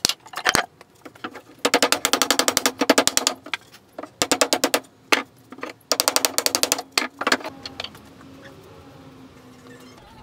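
A machine rattling rapidly in three short bursts, each a fast even clatter over a low hum, with a few single knocks between; a fainter steady hum carries on near the end.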